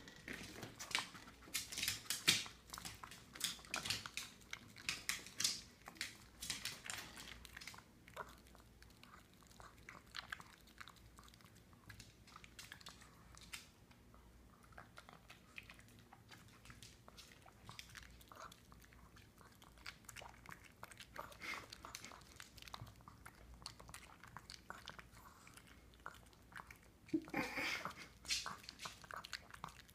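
Small Pug-Chihuahua mix dog chewing and crunching tomatoes, with wet mouth noises and snorting breaths. The chewing clicks come thick for the first several seconds, thin out in the middle, and a louder burst comes near the end.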